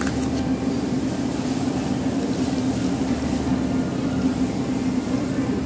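Steady low hum of refrigeration machinery, a constant drone with overtones that does not change.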